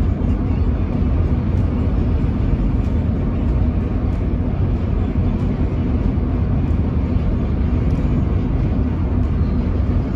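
Steady low rumble of a car travelling at highway speed: tyre and engine noise, unchanging throughout.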